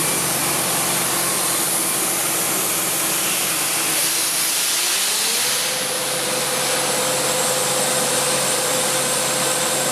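GrimmerSchmidt H175 air compressor running with a steady whir and hiss. About halfway through, its tone glides up in pitch and then holds steady at the higher pitch.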